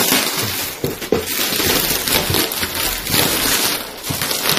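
Plastic parcel wrapping and packing tape being torn open and crinkled by hand, a continuous rustling with short ripping crackles.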